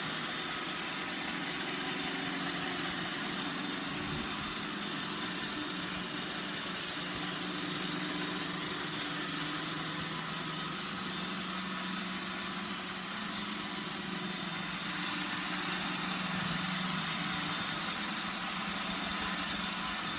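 iRobot Roomba 960 robot vacuum running, a steady motor hum with an even whirring hiss from its vacuum and brushes.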